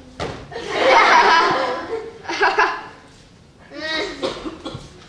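Audience laughing in three bursts, the first and longest about a second in, shorter ones at about two and a half and four seconds.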